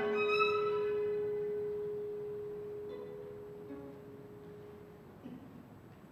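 A single soft held note from a clarinet, violin and cello trio, one steady pitch slowly fading away over about five seconds as the piece ends. A couple of faint short notes sound near the middle.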